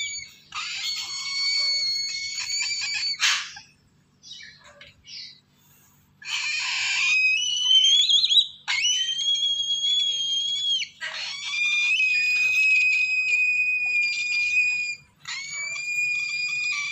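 Lesser sulphur-crested cockatoo chicks giving long, harsh, rasping begging calls at a hand in the nest box, about five calls of one to four seconds each, with a pause of a few seconds early on.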